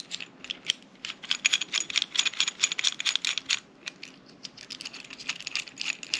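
Rapid small metallic clicks and rattles from working a sight pusher tool on a pistol slide, densest from about one second to three and a half seconds in.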